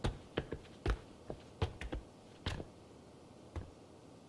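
Footsteps on a stone floor: a string of irregular sharp taps, bunched in the first three seconds and sparser near the end.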